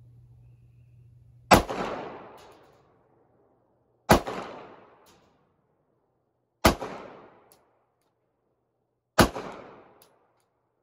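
Four shots from a Glock 45 9mm pistol, about two and a half seconds apart. Each has a sharp report followed by an echo that fades over about a second.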